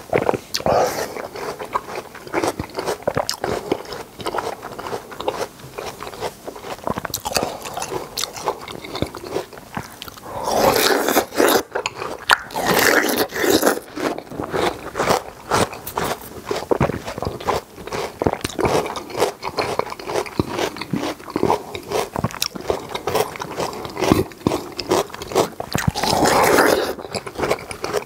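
Close-up eating sounds of half-moon watermelon: wet, crisp bites and chewing, with louder bouts of crunching about ten to fourteen seconds in and again near the end.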